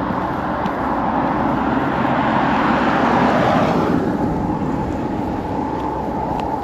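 A road vehicle passing: its tyre and road noise swells to a peak about three seconds in, then falls away quickly, leaving a faint steady hum.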